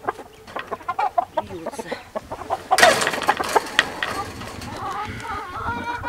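Chickens clucking, with a loud scuffling flurry about three seconds in as a Shamo cockerel is caught up and held, then short pitched clucks near the end.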